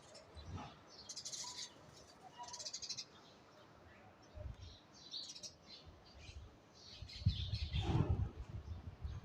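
Small birds chirping, with two quick buzzy trills about a second and two seconds in and scattered short high calls. Near the end a louder low rumble comes in under the birds.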